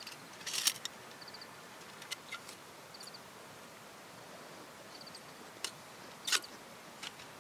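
Steel panels of a folding Firebox twig stove clinking and rattling as it is unfolded: a few sharp clicks, the loudest just under a second in and another a little over six seconds in. Faint high chirps in short groups of three or four recur over a faint steady hiss.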